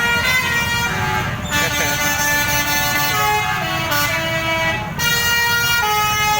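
Telolet multi-tone bus horn playing a quick tune of held notes, several pitches sounding together and stepping to new ones every fraction of a second, over the low rumble of the bus engine.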